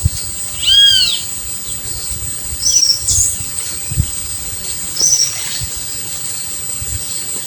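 Wild birds calling over a steady high-pitched insect drone: one arching call about a second in, then short high chirps a few times.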